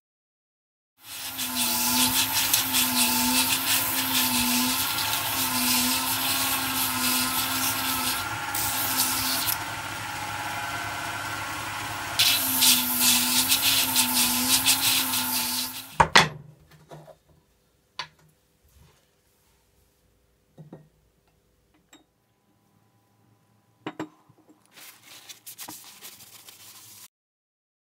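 Belt grinder running, with a steel cleaver blade pressed against the abrasive belt in two spells of loud grinding over a steady motor hum. The grinding stops about halfway through with a sharp knock, followed by a few faint clicks and a soft rustle near the end.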